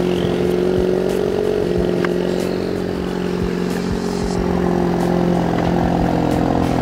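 Ford Focus ST's turbocharged 2.0-litre four-cylinder idling steadily through an exhaust with the muffler deleted and only the stock resonator left; fairly quiet, with a steady drone.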